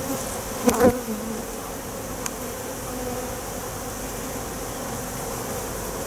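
Steady hum of a large mass of honey bees flying around an open hive box. A short knock or handling noise comes a little under a second in.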